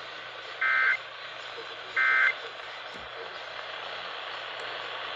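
Two short bursts of Emergency Alert System end-of-message data tones, a buzzy two-tone warble about a second apart, marking the end of the alert. Steady radio hiss lies under them.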